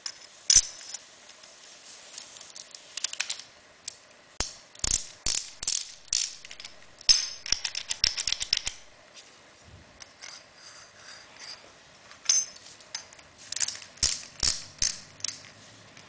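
Metallic clicks, taps and short rattles as an aluminium extrusion profile and a MayTec universal connector are handled and fitted together. Near the end comes a quick run of clicks as a small ratchet wrench tightens the connector.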